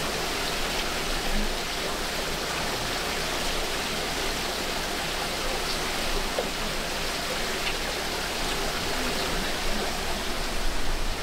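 A steady, even rushing noise.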